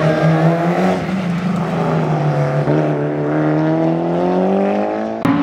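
Rally car engine running hard under load, its note rising slowly as it accelerates. Near the end a sharp click is followed by an abrupt jump to a higher engine note.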